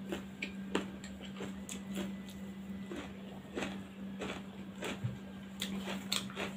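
Close-up eating sounds: scattered small clicks and wet smacks of chewing, and fingers mixing rice on a steel plate, over a faint steady hum.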